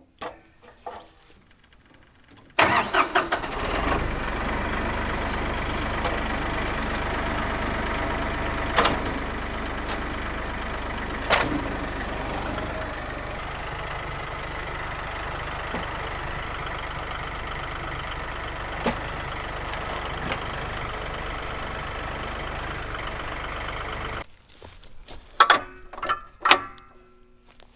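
Massey Ferguson 1835E compact tractor's diesel engine starting about two and a half seconds in and running steadily, then stopping suddenly near the end. A few clicks and knocks come before it starts and after it stops.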